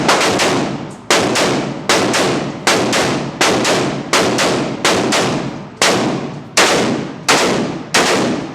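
Gunfire: a steady string of about a dozen single shots, roughly one every three-quarters of a second, each followed by a long echoing tail.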